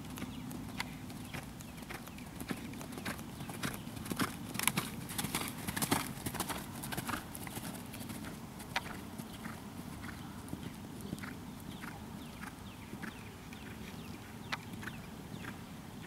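Hoofbeats of a ridden horse on a sand-and-dirt arena as it moves through trot and canter. The hits come thickest and loudest about four to seven seconds in, then settle into an even rhythm of about two a second.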